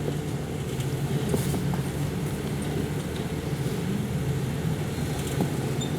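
Jeep Wrangler's engine running steadily as it crawls up a rocky ledge, with a few faint clicks over the hum.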